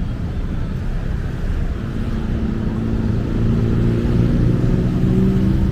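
Street traffic rumble, with a motor vehicle's engine humming that sets in about two seconds in and grows louder.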